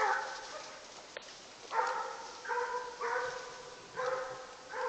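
Coonhounds barking treed: a series of about six long, pitched barks, roughly one a second, the sign that the dogs have a raccoon up a tree.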